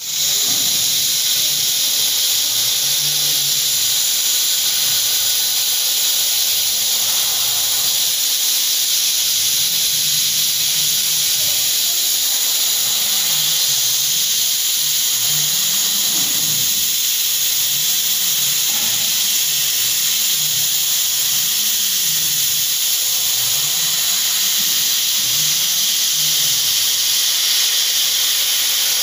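Laser cutting head on a Z1325 laser cutting machine cutting acrylic sheet: a steady, loud hiss of assist air blowing from the nozzle, under which a low hum rises and falls every second or two as the gantry's drive motors trace the curves of the pattern.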